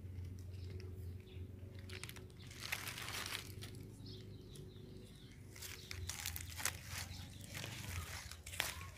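Dry leaves and twigs rustling and crackling in two spells, about two seconds in and again from about six seconds on.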